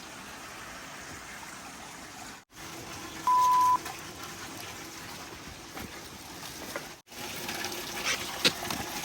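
Hot spring water running and trickling as a steady hiss, cut off briefly two or three times. A loud, short, steady beep sounds about three seconds in, and a few splashy clicks come near the end.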